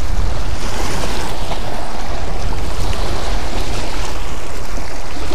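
Wind buffeting an action camera's microphone, a steady low rumble, over small waves lapping on a gravel lakeshore.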